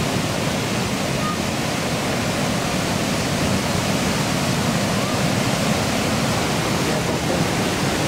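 Floodwater pouring over a river dam and churning in the whitewater below it: a loud, steady rush of water.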